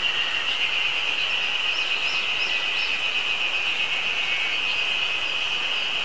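A chorus of Ezo spring cicadas (Terpnosia nigricosta) calling: a steady, high, rapidly pulsing buzz. Short, faint bird notes sound above it a second or two in.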